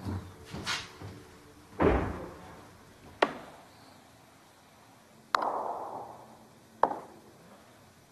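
Snooker balls and cue clicking: five separate sharp clicks a second or two apart, the one about two seconds in a heavier knock.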